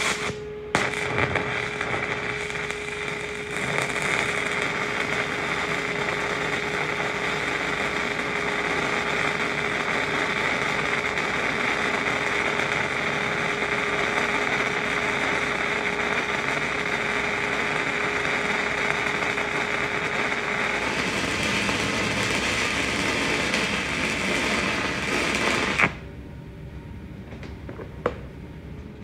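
Stick welding arc burning a 6010 electrode: a steady, harsh crackle and hiss for about 25 seconds that cuts off suddenly near the end as the arc is broken, making a stop in the root pass.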